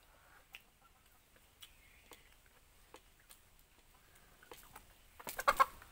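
Faint, scattered clicks of cups and plates at a meal, then about five seconds in a short, loud burst of chicken clucking.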